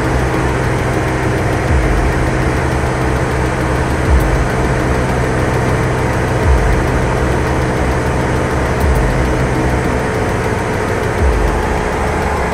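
Steady drone of a Cessna 172R's four-cylinder Lycoming IO-360 engine and propeller in flight, heard inside the cabin. Brief low thuds come about every two and a half seconds.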